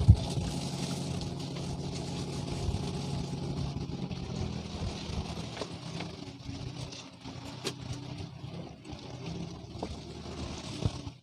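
Boat engine running steadily, growing fainter after about four seconds, with a few light knocks.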